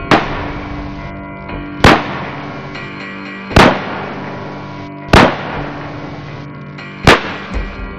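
Five gunshot sound effects, about one every one and a half to two seconds, over steady background music.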